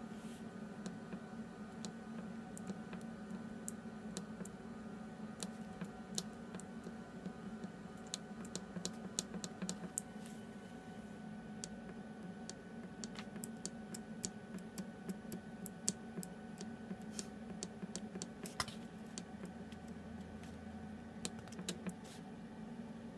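Control-panel buttons on a Martin MX10 scanner clicking irregularly as they are pressed, in clusters, over a steady low hum from the running fixture.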